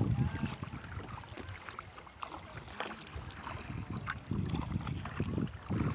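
Wind gusting on the microphone in low rumbles, with small water splashes and drips from a kayak being paddled.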